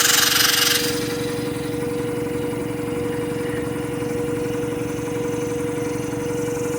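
Quincy air compressor's unloader valve venting at cutout pressure through an Alwitco automuffler: a hiss of escaping air that cuts off about a second in. The compressor pump keeps running unloaded, a steady hum with a constant tone.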